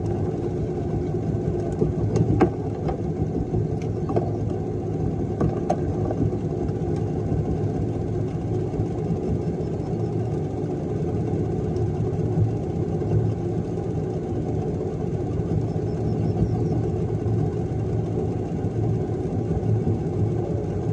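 Outboard motor idling with a steady low hum, with a few light knocks in the first six seconds.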